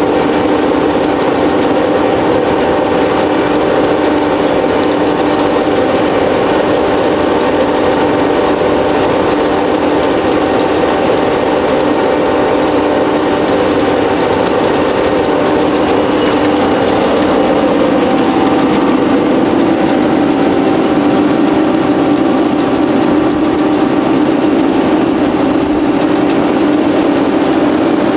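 ELF Systems Pellet Mill 772 pelleting plant running under load, pressing wild artichoke (cynara) biomass into pellets: a steady, loud drone of electric motors and the press, with several constant tones.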